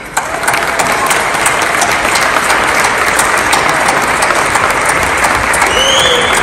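Large crowd applauding, dense steady clapping.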